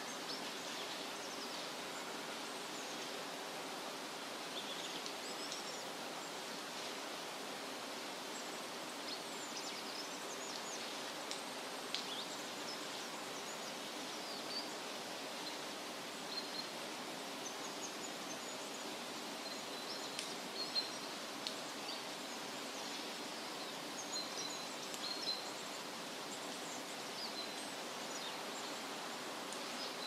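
Steady outdoor background noise with scattered faint, high, short bird chirps, busier about two-thirds of the way in.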